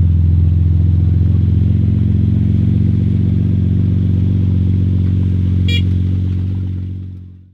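Porsche 991 GT2 RS's twin-turbo flat-six running at a steady low idle as the car crawls away, fading out near the end. A brief high chirp about five and a half seconds in.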